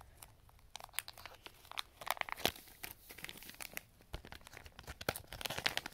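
Clear plastic bags of wax melts crinkling as they are handled, in scattered irregular crackles.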